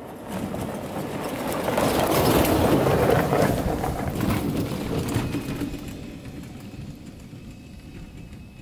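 Small utility vehicle driving past over a gravel track. Its motor and the crunch of tyres on gravel grow louder as it comes close, about two to three seconds in, then fade as it moves away.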